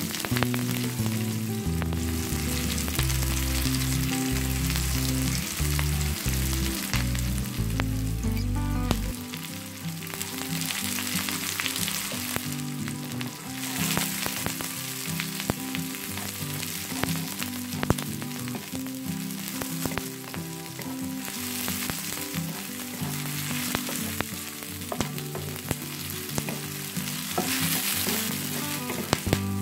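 Onion, garlic and spring onion sizzling in hot oil in a nonstick frying pan, with a wooden spatula stirring and scraping the pan in short clicks. Under it run low tones that shift in steps, heaviest for about the first nine seconds.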